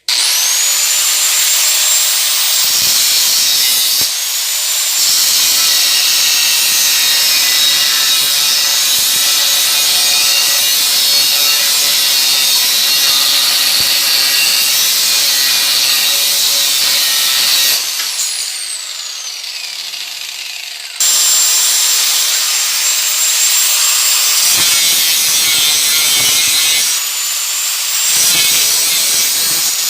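An electric power tool's motor starts up and runs, working wood. About two-thirds of the way through it winds down briefly, then starts up again and runs on with a few short dips.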